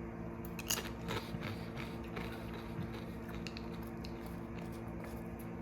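Crunching a chip while biting and chewing it: a run of sharp crunches in the first few seconds, the loudest about a second in, over a steady low hum.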